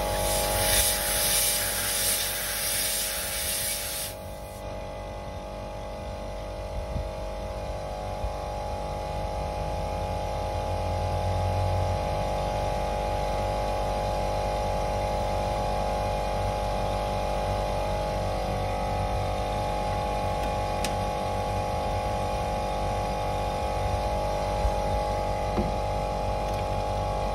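Running air conditioning system giving a steady mechanical hum of several held tones. A loud hiss lasts for the first four seconds and then cuts off suddenly.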